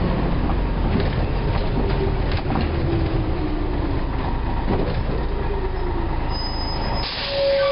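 Wright-bodied Scania L113CRL Ultralow bus running, with a steady engine drone, scattered rattles and a faint whine that slowly rises and falls. About seven seconds in the drone drops away and a short beep sounds near the end.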